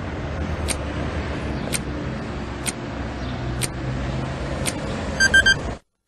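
A clock ticking about once a second over a steady low background noise, then an alarm clock going off with a quick group of three beeps near the end, after which the sound cuts off abruptly.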